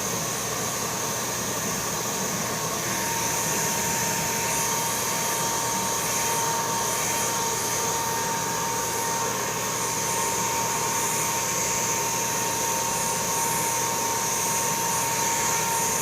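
Handheld electric paint spray gun running steadily while spraying paint: a constant whirring hiss with a thin, steady whine.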